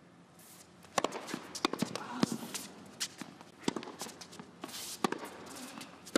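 Tennis rally on an indoor hard court: sharp racket-on-ball strikes roughly every second and a half, the first about a second in as the serve is hit, with smaller ball bounces and footfalls between them over a low murmur from the crowd.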